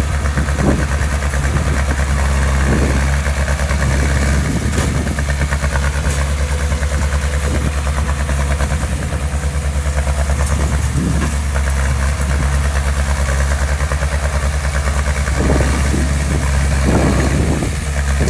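Heavy-equipment diesel engine running steadily at low revs, with a few brief swells in its sound.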